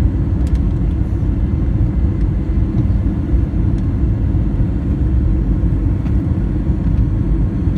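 Steady low rumble of an Airbus A321 passenger cabin in flight on descent: engine and airflow noise heard from a seat inside.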